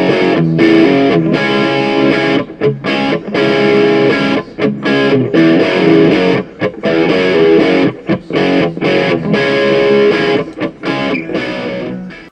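Outro music: a distorted electric guitar playing a steady rhythm, fading out near the end.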